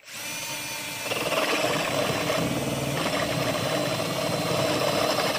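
Cordless drill spinning a 22 mm Pro-Fit TCT hole saw, with a single tungsten-carbide tip, as it cuts through a wooden board. It starts at once and grows louder about a second in, then runs steadily through the cut.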